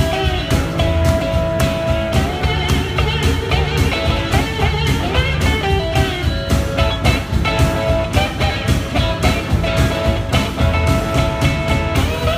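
Live band music led by a guitar playing long held and gliding notes over a steady beat.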